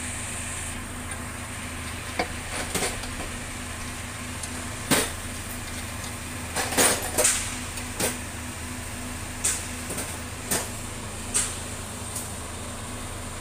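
Sharp metallic clicks and knocks of hands and tools working on the parts of an A/C service station, about ten of them at irregular intervals over a steady low hum. The loudest knock comes about five seconds in, with a cluster near seven seconds.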